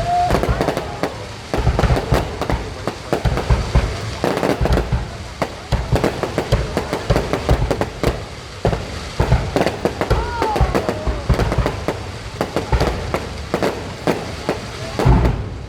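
Aerial fireworks going off in a rapid, continuous barrage: many loud bangs and booms overlapping with little pause between them.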